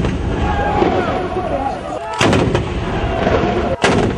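Towed field howitzers firing: two heavy blasts, about two seconds in and again near the end, with the rumble of a shot fired just before carrying through the opening. Voices can be heard between the shots.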